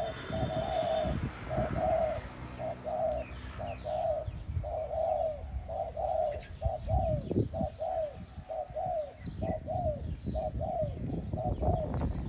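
Dove cooing: a long run of short, even coos, about two a second, over a low rumble.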